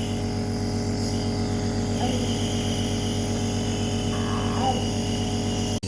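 Compressor nebulizer running with a steady buzzing hum during a child's nebulizer treatment.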